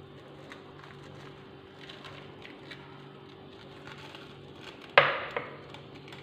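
Quiet kitchen handling sounds: faint ticks and rustles as hands work a small plastic-wrapped packet over a bowl, over a steady low hum. About five seconds in there is one sharp crack, then a smaller one right after.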